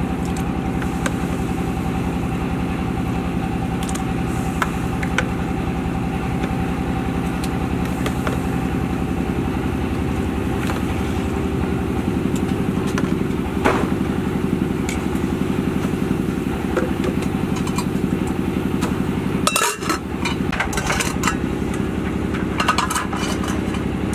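A small engine running steadily, with a few sharp clicks and a brief clatter about twenty seconds in.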